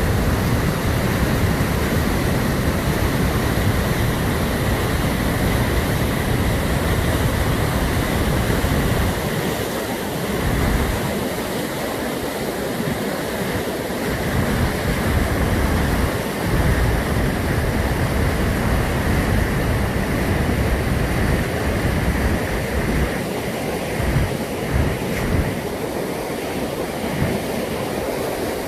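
Steady rushing of a waterfall on the Brúará river, with wind buffeting the microphone in gusts that come and go.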